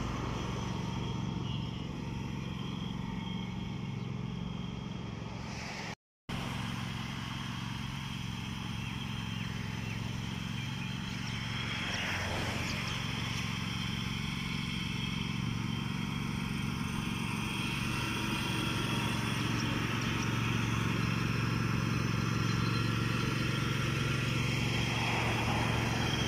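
Ride-on lawn mower engine running steadily while mowing grass, with a brief swell of noise about twelve seconds in and growing a little louder near the end.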